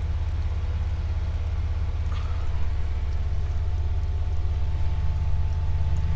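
Jeep Wrangler TJ's engine idling steadily, a low rumble heard from inside the cabin.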